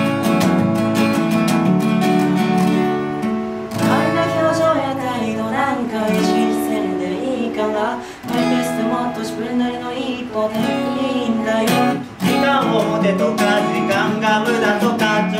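Two acoustic guitars strumming and picking a pop song. A woman's singing voice comes in over them about four seconds in, with short breaks between phrases.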